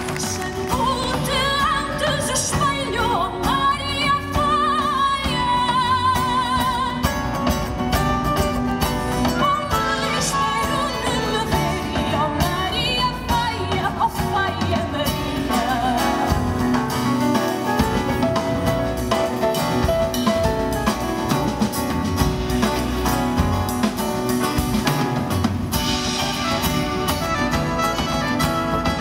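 Live band playing, with a high melodic line sung or played with vibrato over acoustic guitar and a steady accompaniment.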